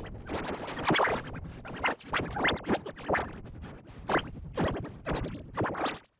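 Cartoon soundtrack run through heavy stuttering audio effects: rapid chopped, scratch-like bursts over music.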